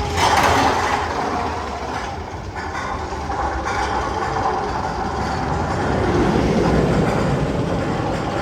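Steel roller coaster train running along its track with a continuous rumble, loudest just at the start and again about six seconds in.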